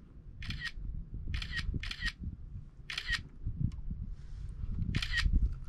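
Smartphone camera shutter sound, five quick snaps at uneven spacing, over a low rumble.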